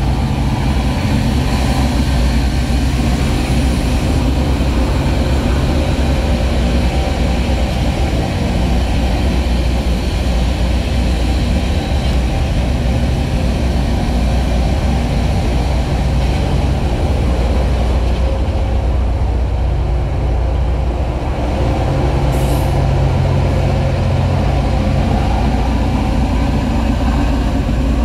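Loram RG-404 rail grinder train running steadily: a constant low diesel drone under a broad rushing noise.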